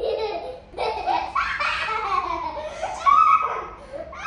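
A small child laughing hard and uncontrollably, in long runs of giggles with a short break about a second in.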